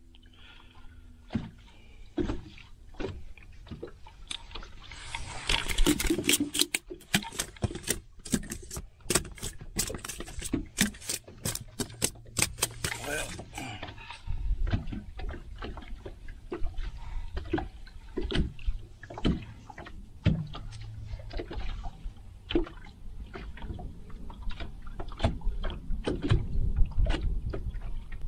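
Irregular knocks and clicks of handling on a fishing boat, with a splashing rush of water for several seconds near the middle.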